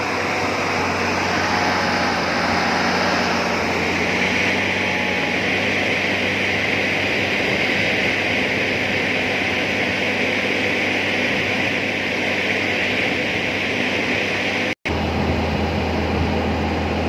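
Kulmec air compressor and engine of an excavator-mounted rock-drill rig running steadily: a low engine hum under a loud rushing air hiss, with no drilling strikes.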